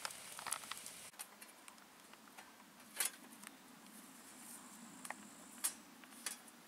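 Folding sheet-steel camp grill being fitted together by hand, giving four sharp metallic clicks and clinks spread over the last few seconds. A campfire crackles softly in the first second.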